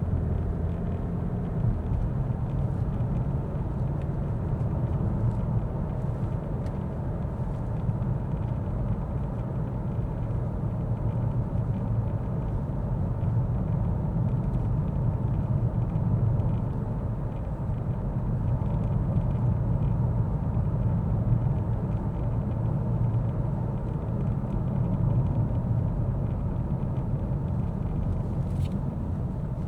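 Mercedes-Benz S 450d under way: a steady low rumble of road, tyre and engine noise, rising and falling slightly.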